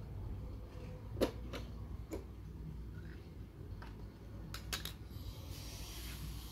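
Sharp plastic clicks and taps from handling a JVC Victor Clavia boombox: its buttons pressed and a USB Bluetooth dongle pulled from its front port as the unit is switched off. Scattered single clicks, the loudest about a second in, then a quick run of three about four and a half seconds in, over a low hum, with a soft hiss near the end.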